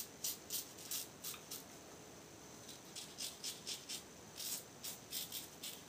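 Short scraping strokes of a 1930s Gillette New open-comb safety razor with a Supermax blade cutting through lathered stubble, several quick strokes a second in short runs.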